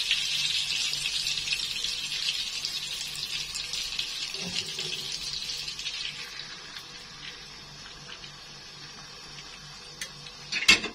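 Melted butter sizzling in a frying pan; the sizzle fades away as beaten eggs are poured in and spread over the pan. A few sharp knocks near the end.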